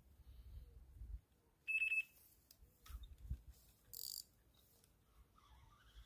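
A single short electronic beep from a carp bite alarm, with soft knocks and low rumble around it.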